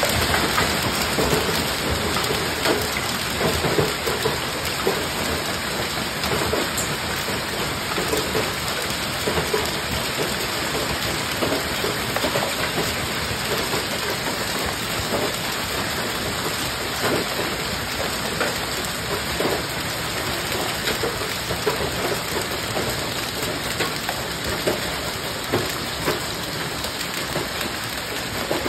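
Hail and rain pouring down steadily, small hailstones pelting a lawn and concrete walk: a dense hiss dotted with many sharp ticks and patters.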